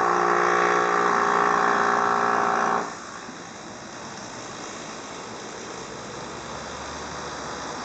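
ETR 610 electric tilting train sounding its horn: a loud, steady chord held for about three seconds that stops abruptly. After it comes a quieter rushing noise of the train running past.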